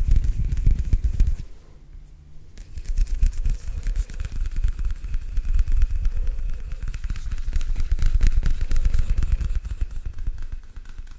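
Hand sounds made right up at a microphone: fingers and palms rubbing and fidgeting together, a dense crackly rustle with a heavy low rumble from the close miking. It drops away for about a second, a second and a half in, then picks up again and dips once more near the end.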